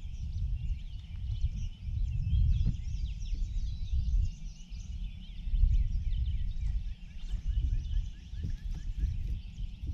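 Many small birds chirping and singing in a dense early-morning chorus over a steady, uneven low rumble.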